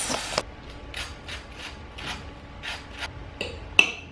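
Frying sizzle that cuts off about half a second in, then a kitchen utensil making short scraping strokes, about two to three a second, with one sharper stroke near the end.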